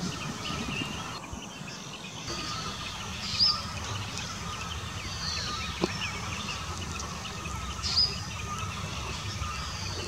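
Birds chirping outdoors: scattered short high chirps, with two louder sweeping ones about a third of the way in and near the end, over steady low background noise. One faint tap comes about six seconds in.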